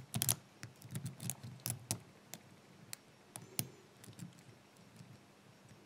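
Light, irregular metallic clicks and taps from a Brinks five-pin brass padlock and its picking tools, as the plug is turned back by hand and the pins click back into place. The clicks are thickest in the first two seconds and thin out after.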